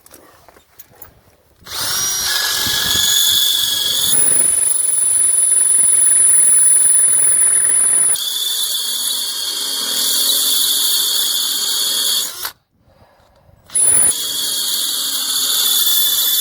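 Power drill running under load, boring out worn bolt holes to take a bigger bolt. It starts about two seconds in, runs steadily, stops briefly near the end, then starts again.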